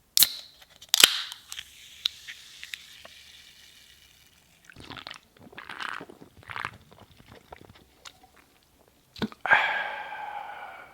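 Aluminium soda can opened: a click of the tab, then a sharp pop about a second in, followed by the fizz of the carbonation hissing and fading over about three seconds. Three soft gulps follow, then a drawn-out burp near the end.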